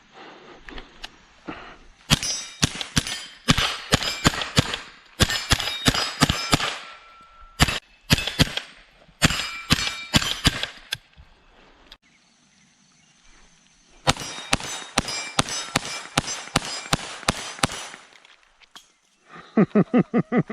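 Two rapid strings of gunshots, several shots a second. The first string runs for about nine seconds with short pauses. After a break of about three seconds, a second string lasts about four seconds.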